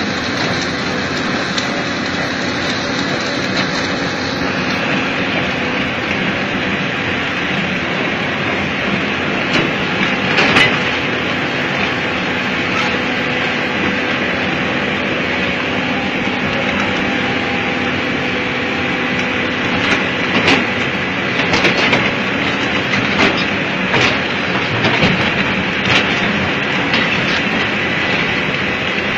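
Excavator-mounted rotary drum cutter grinding into rock: a loud, steady, rattling grind over a low machine hum, with scattered sharper knocks of breaking rock, more of them in the second half.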